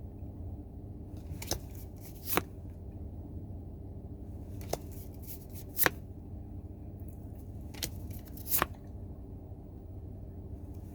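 Pokémon trading cards handled and flipped through by hand: about six short, sharp card flicks and snaps spread across the stretch, over a steady low hum.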